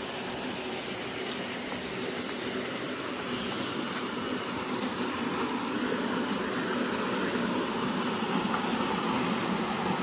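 Steady rush of flowing water at a small concrete dam, slowly growing louder.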